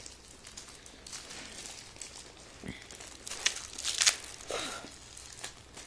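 Quiet handling noises: a scatter of small clicks and brief rustles, the loudest about three to four seconds in, as dog tags and their packaging are handled.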